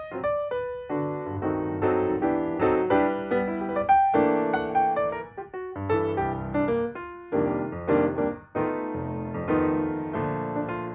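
Background piano music: a continuous run of struck notes with chords beneath.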